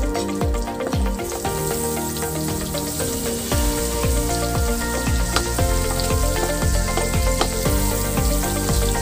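Butter and oil sizzling in a hot wok, the sizzle getting louder about a second in, while a wooden spatula stirs through it. Background music with a steady beat plays alongside.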